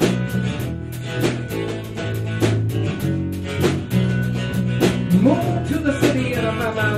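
Background music: a band song with a steady drum beat and bass.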